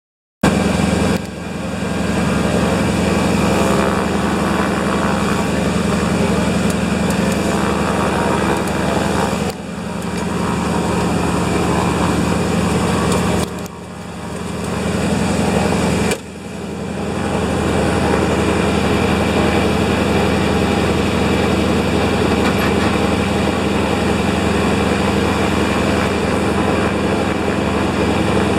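De Havilland Beaver floatplane's engine and propeller running steadily at high power, with sudden brief drops in level three or four times before it comes back up.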